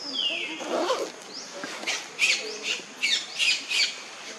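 High-pitched animal calls: a falling squeal at the start, then a quick run of short, sharp squawks and chirps in the second half.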